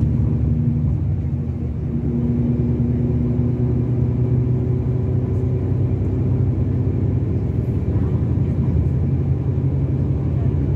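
Diesel engine of a Mercedes-Benz O-500RSD 2441 coach running with a steady low drone. The engine note dips briefly and shifts slightly in pitch about two seconds in.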